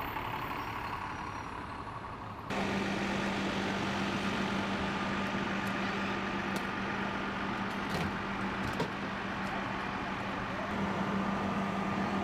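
Buses' engines running with a steady low hum. The sound jumps abruptly louder about two and a half seconds in, and a few short sharp clicks come later.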